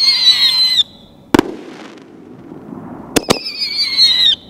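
American Glory 6-inch canister shells fired from a mortar tube, each with a loud whistling tail. A whistle already sounding cuts off just under a second in, and the shell bursts with a sharp bang about half a second later. A second shell launches about three seconds in with two quick cracks, and its whistle runs about a second, wavering and dropping slightly in pitch before it stops.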